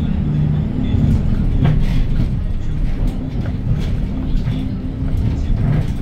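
Cabin sound of a 2021 Hyundai Green City city bus under way: its C6GB G240 compressed-natural-gas engine running with a low drone that shifts in pitch now and then. A few short knocks and rattles come from the bus body.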